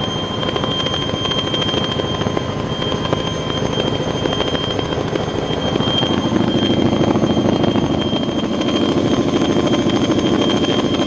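Aircraft engines running with a loud, steady drone and a constant high whine, growing louder about six seconds in.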